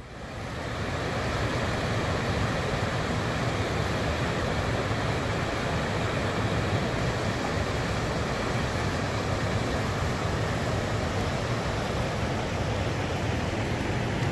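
Whitewater river rapids rushing steadily, fading in over the first second or two.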